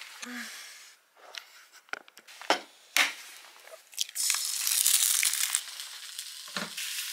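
A few sharp cracks and knocks, then food starts sizzling in a non-stick frying pan on a portable gas camp stove about four seconds in. The sizzle is loudest at first, then settles to a steady frying hiss.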